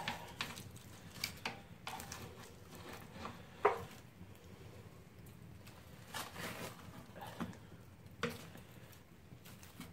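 Knife and fork cutting into the soft flesh and charred skin of a baked pumpkin, with scattered quiet scrapes and clicks of the metal cutlery. One sharper clink comes about three and a half seconds in.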